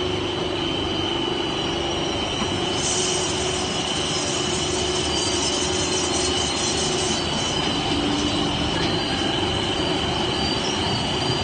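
HDPE double-wall corrugated pipe production line running: a steady mechanical din with a constant high-pitched whine and a lower hum.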